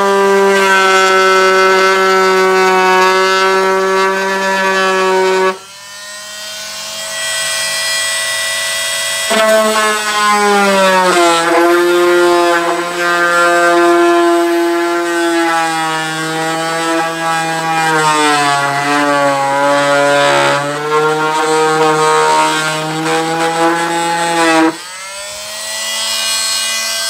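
Dremel oscillating multi-tool running at slow speed, its blade cutting through the skin of a model airplane wing, with a steady pitched whine. It drops away briefly about five seconds in, starts again around nine seconds with its pitch sagging and wavering as the blade bites, and stops near the end.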